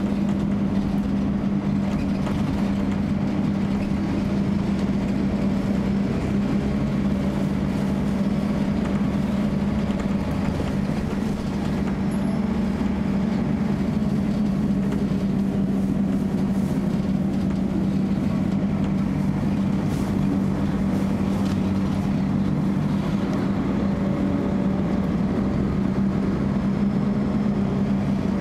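Bus heard from inside the passenger saloon while under way: a steady, loud cooling-fan drone holding one pitch throughout, over engine and road noise.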